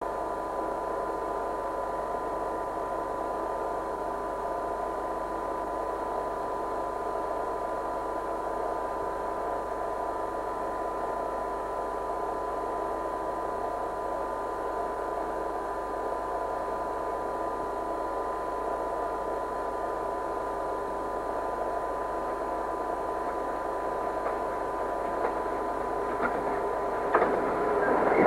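A steady hum and hiss with a faint constant tone, then in the last few seconds an EWS Class 66 diesel locomotive, with its EMD two-stroke V12 engine, grows louder as it arrives hauling freight wagons, with a couple of clicks near the end.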